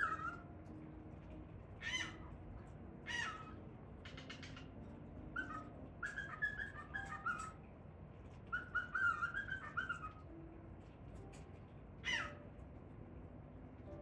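Male cockatiel calling and singing: a few short harsh squawks, and two runs of warbling chirps and whistles in the middle, with a quick series of faint clicks in between.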